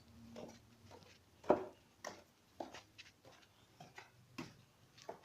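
Light, irregular clicks and taps of small objects being handled, the clearest about a second and a half in, over a faint low hum.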